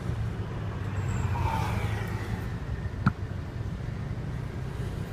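Low, steady rumble of street traffic, with a single sharp click about three seconds in.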